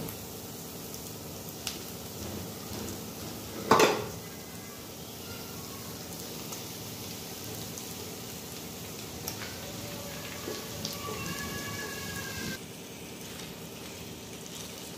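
Onion paste frying in oil in a non-stick kadai, a steady sizzle, as marinated chicken pieces go in and are stirred with a spatula. There is one loud knock about four seconds in.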